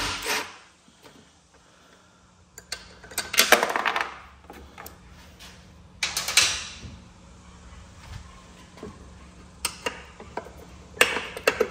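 Short bursts from a Milwaukee Fuel brushless cordless impact loosening the idler pulley bolt on a push-mower deck. The bursts are followed by clicks and clatter of the idler arm, pulleys and drive belt being worked off by hand.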